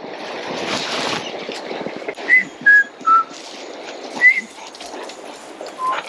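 Five short, clear whistled notes over the rustle of footsteps through bush undergrowth. The first three step down in pitch, one after another; a fourth comes about a second later and a lower one near the end.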